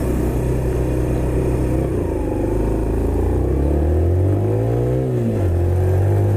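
Suzuki RV125 Van Van's single-cylinder engine pulling under acceleration on the road. Its pitch holds, then rises from about two seconds in, drops sharply around five seconds at a gear change and holds steady again.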